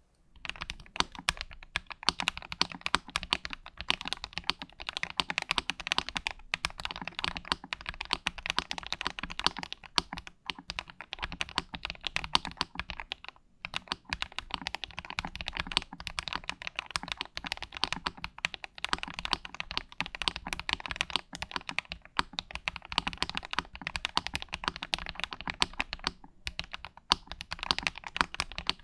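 Keychron V1 mechanical keyboard, a tray-mount board with a steel plate, being typed on in a continuous run of fast keystrokes, with a couple of brief pauses.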